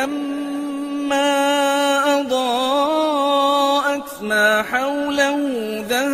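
A solo voice reciting the Quran in Arabic as a melodic chant, holding long drawn-out notes with ornamented turns in pitch. There is a brief break about four seconds in before the chant goes on.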